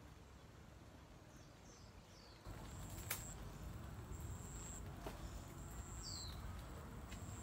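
Faint birds chirping, short falling calls now and then. About two and a half seconds in, a low rumbling noise sets in and stays, with a sharp click soon after and a thin high tone that comes and goes.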